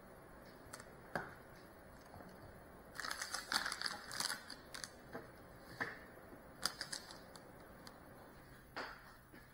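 Light clicking and clattering of small objects being handled: a quick run of clicks about three seconds in lasting a couple of seconds, then a few single clicks spaced out after it.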